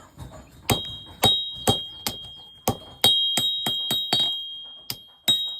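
Blacksmith's hammer striking metal on an anvil, about a dozen uneven blows with a high metallic ring that carries on between strikes and a short pause near the end.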